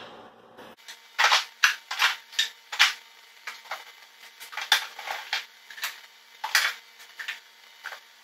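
Hand tools clicking and clacking against each other and against wood as they are taken from a tool chest and set down: an irregular string of sharp knocks and clinks, with a cluster near the start and a few more spread through the rest.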